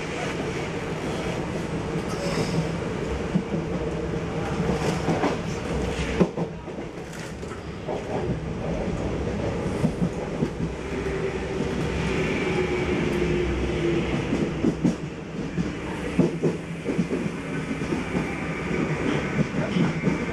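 RER C commuter train running, heard from inside the carriage: a steady rumble with irregular clicks and knocks of the wheels passing over rail joints.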